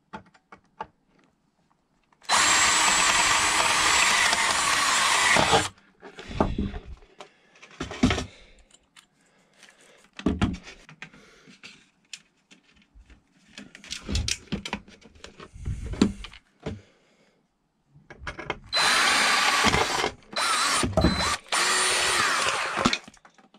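Black+Decker cordless drill drilling out the rivets on an aluminium light fixture, in two runs: one of about three seconds early on and one of about four seconds near the end, with brief stops. In between come scattered metal knocks and clinks of the fixture and rivets being handled.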